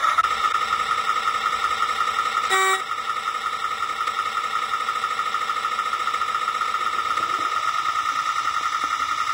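Mamod Boulton garden-railway model locomotive running along the track with a steady high whine from its drive. A short horn toot sounds a couple of seconds in.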